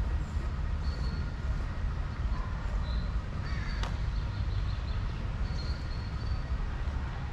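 Outdoor ambience: a steady low rumble, with short high chirps of small birds coming and going and a single sharp click near the middle.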